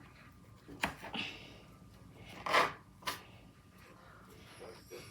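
A steak knife cutting the tops off strawberries: a few short clicks and rustling knocks as the knife and fruit are handled, the loudest a little after halfway.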